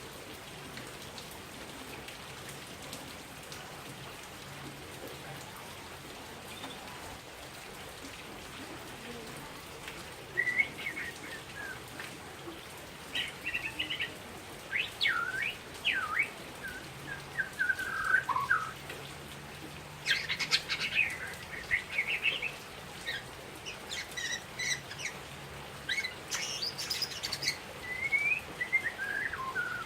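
A Bornean murai batu (shama) singing. After about ten seconds of quiet, it sings phrases of clear, sweeping whistled notes, mixed with some harsher, buzzier notes in the second half.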